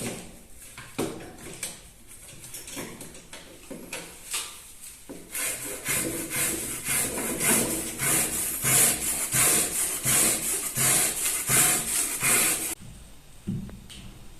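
A few scattered light knocks on board, then about seven seconds of fast, rhythmic rasping strokes on the board that stop suddenly.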